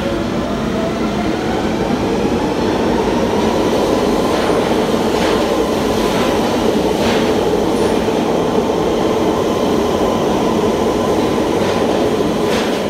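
London Underground tube train pulling out of a platform. The motor whine rises in pitch and levels off about two seconds in, over steady wheel and rail noise, with a few sharp clicks from the wheels on the track.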